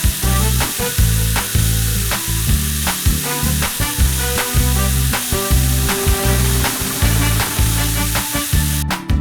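Background music with a steady beat under a continuous sizzling hiss that cuts off near the end.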